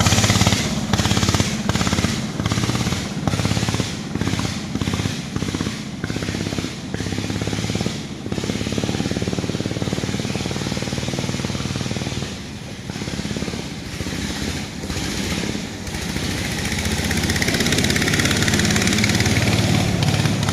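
A small boat's engine running steadily under load with a rapid low putter, over a rushing hiss of water and air. The sound dips briefly every second or so for the first sixteen seconds, then runs evenly.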